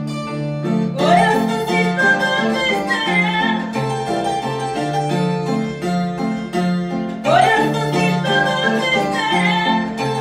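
Andean harp music: a rhythmic instrumental with short plucked bass notes under a higher melody. A second melodic line slides upward twice, about a second in and again about seven seconds in.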